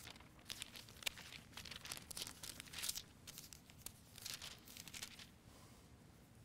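Thin Bible pages being leafed through and handled, a faint papery rustling in quick bursts that stops about five seconds in.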